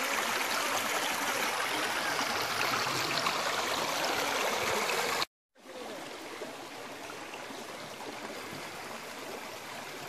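Shallow mountain stream running over rocks, a steady rushing and splashing of water. It cuts off briefly a little past halfway and comes back quieter.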